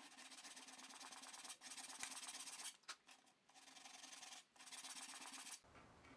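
Fine 220-grit sandpaper rubbed by hand along the grain of oak veneer, a soft scratchy hiss in long strokes with short pauses between them. It stops about five and a half seconds in.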